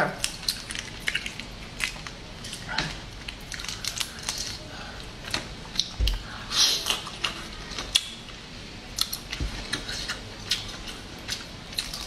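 Boiled crayfish shells crackling and clicking as they are twisted apart and peeled by hand, in many small irregular snaps. About halfway through there is a brief louder crunch as one is bitten into.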